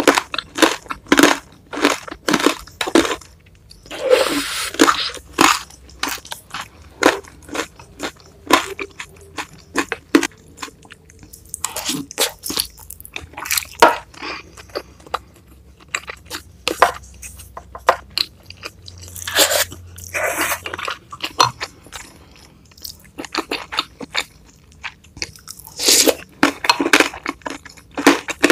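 Close-miked eating of bakso meatball soup: steady wet chewing with small clicks and smacks, broken about four times by longer slurps of vermicelli noodles and broth.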